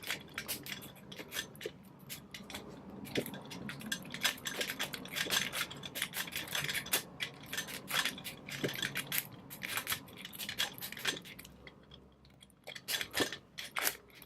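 A straight bobby pin being raked up and down in the keyway of a Qiangshi cylindrical door lock under tension: a run of small, irregular metallic clicks and scrapes as the pin jiggles the lock's pins toward their set position.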